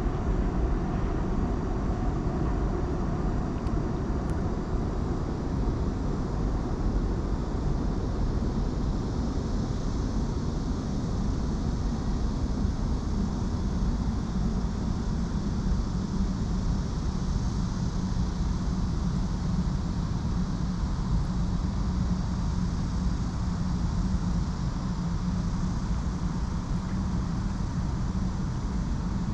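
Steady distant city traffic rumble from the roads and bridges across the river, with a low hum that comes up about halfway through and holds.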